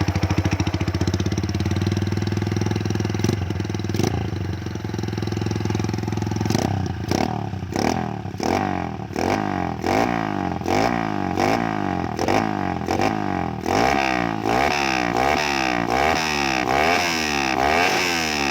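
Honda Sonic single-cylinder four-stroke motorcycle engine, stock, breathing through an aftermarket performance exhaust. It idles steadily at first, then about six seconds in it is revved over and over in quick throttle blips, the pitch rising and falling with each.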